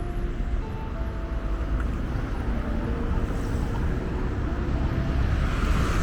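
Steady road-traffic rumble, growing louder near the end as a vehicle passes close by.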